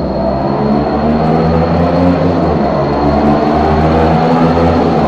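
CFMoto NK400 parallel-twin engine running steadily through an aftermarket Orion exhaust, a loud low drone close to the bike.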